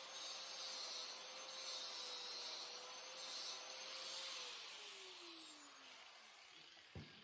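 A small electric grinder running steadily at a high pitch, then switched off about four seconds in and winding down over the next two seconds. Two light knocks follow near the end.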